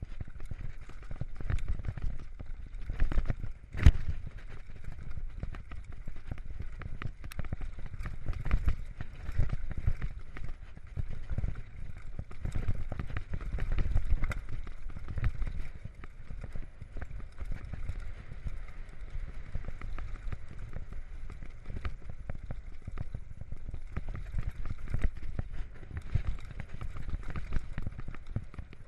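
Mountain bike rattling and knocking as it rides fast downhill over loose rock and then a dirt track, with wind rumbling on the camera microphone. Sharp knocks come thick and irregular, the loudest about four seconds in.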